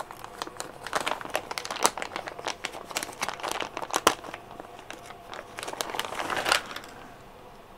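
Plastic kit parts bag crinkling as it is handled: a dense run of sharp crackles that stops near the end.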